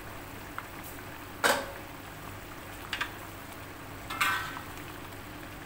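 A metal ladle knocking and clinking against an aluminium wok of chicken and pumpkin curry. One loud knock comes about a second and a half in, then lighter clinks, one with a short metallic ring, over a low steady hiss.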